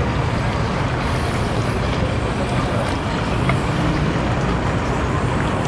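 Outboard boat motors idling at slow speed, a steady low rumble with no change in pace.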